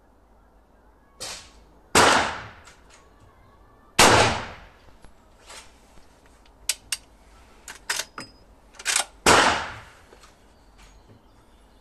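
Winchester 1892 lever-action rifle in .44-40 firing three loud shots, about two seconds in, four seconds in and just after nine seconds, each ringing on for about a second. A weaker report comes about a second in, and several short sharp clacks, mostly in quick pairs, fall between the second and third shots.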